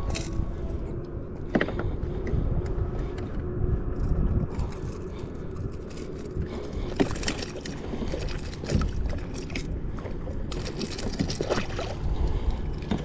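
Knocks, clicks and water splashes on a fishing kayak as a small hooked fish is fought and handled, over a steady low rumble.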